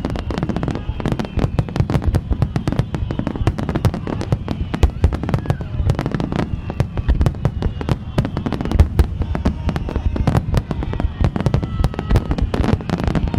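Fireworks finale: a dense, continuous barrage of aerial shells bursting, many sharp bangs and crackles every second with no pause.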